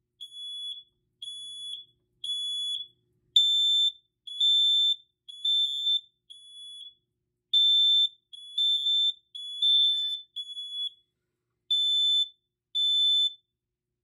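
Two smoke alarms, a First Alert and a Kidde, beeping in test mode with loud high-pitched piezo horn tones about once a second. The second alarm joins after about three seconds at a slightly higher pitch, and the two beep out of step with each other until both stop near the end.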